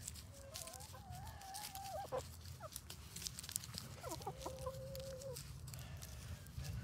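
Backyard hens calling: two long, drawn-out calls, the first about half a second in and wavering, the second about four seconds in and held steady, with a few short clucks between them. A scatter of light clicks runs underneath.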